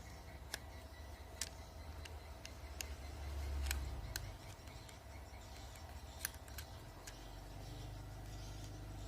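Edible-nest swiftlets making sharp echolocation clicks, about ten at irregular intervals, with faint high twittering between them over a low steady rumble.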